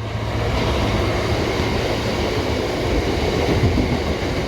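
Freight train hauled by a Class 59 diesel locomotive passing close by: a loud, steady rumble of engine and wagons rolling on the rails.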